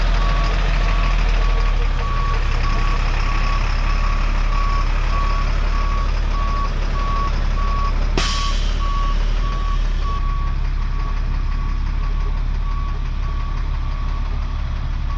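A truck backing up with its backup alarm beeping at an even on-off pace over the steady running of its engine. A single sharp knock sounds a little past halfway.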